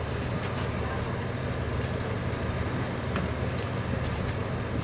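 A steady, low engine rumble, typical of a fishing boat's diesel idling at the dock, with scattered light knocks and clicks as wire lobster traps are handled on deck.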